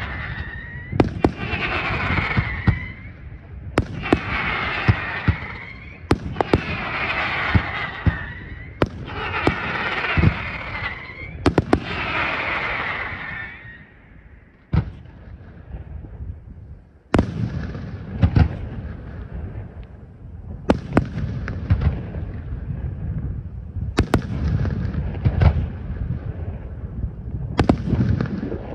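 Aerial firework shells bursting in a display. In the first half, bangs come about every two and a half seconds, each followed by a couple of seconds of hissing crackle from crackling stars. After a short lull about halfway through come deeper booms every few seconds, each ringing on.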